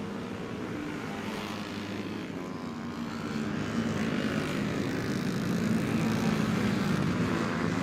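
Racing motorcycle engines buzzing in a steady drone, growing louder from about three seconds in as the bikes come nearer.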